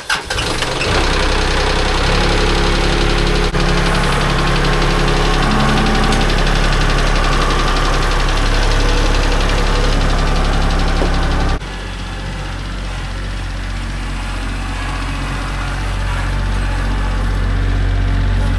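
Compact loader tractor's diesel engine starting right at the start and settling into a steady run. About two-thirds of the way through the sound cuts to the engine heard from farther off, slowly growing louder.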